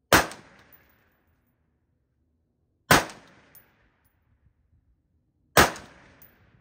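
Three single shots from a Sons of Liberty Gun Works M4-76 AR-15 rifle in 5.56 mm, fired slowly about two and three-quarter seconds apart. Each is a sharp crack that dies away over about half a second.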